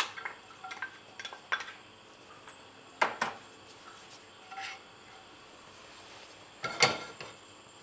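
Scattered clinks and knocks of kitchen utensils against a non-stick frying pan as garlic is put into the oil and a wooden spoon stirs it. A few light ticks come first, then a louder pair about three seconds in, a short ringing clink a little later, and the loudest knocks near the end.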